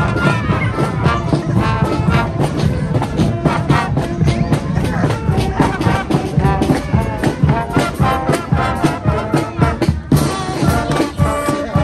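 Marching band playing live as it passes: brass instruments (trumpets, trombones and tubas) play a tune over a steady drum beat.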